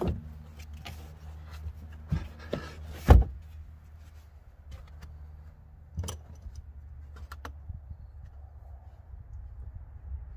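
Hard plastic trunk floor cover being set back into a car's trunk: several knocks and clatters as it is dropped in and pressed into place, the loudest about three seconds in, over a steady low hum.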